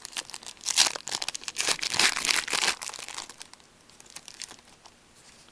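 A Pinnacle Mint hockey card pack being torn open and its wrapper crinkled, with dense crackling for about three seconds, then only faint rustling as the cards come out.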